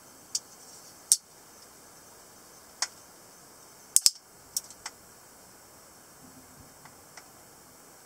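Sharp metallic clicks of a PK5.1 semiautomatic folding knife's blade and lock mechanism as the blade is swung and locked. There are about eight clicks, the loudest a quick double click about four seconds in, with a strong single click about a second in and faint ticks near the end.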